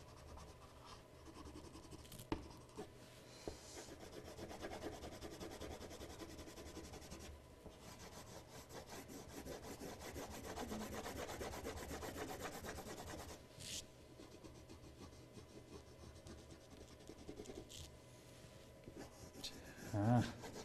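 Coloured pencil rubbing back and forth on paper as an area is shaded in, a faint scratchy rubbing that is strongest through the middle and thins out after about 13 seconds, with a few light taps.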